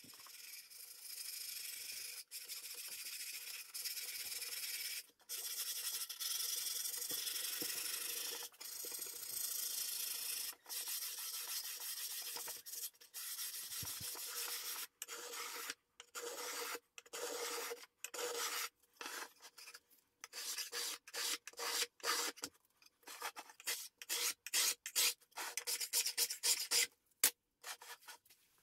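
Hands rubbing over the lining in the bottom of a wooden tray. A steady scratchy rubbing runs for about fifteen seconds, then turns into shorter, choppier strokes with brief gaps.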